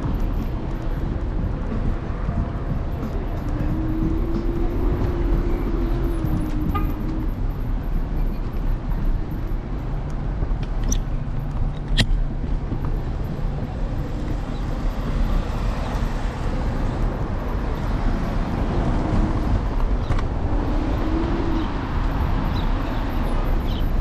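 Steady low rumble of wind buffeting and road noise picked up by a GoPro on the handlebars of an electric scooter riding city streets, with traffic around. A brief hum comes in about four seconds in, and a single sharp click comes about twelve seconds in.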